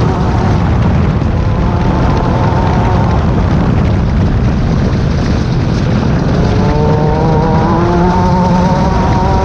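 Class 10 off-road race buggy running hard over rough ground, a heavy rumble of engine and terrain noise; about two-thirds of the way through, the engine note comes up clearly and climbs steadily as it revs.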